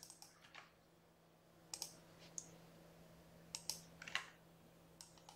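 Faint computer keyboard and mouse clicks: a handful of single and paired clicks spread through the few seconds, over a faint steady hum.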